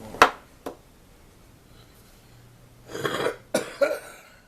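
Two sharp clicks in the first second, then a man coughing, one longer cough about three seconds in followed by two short ones.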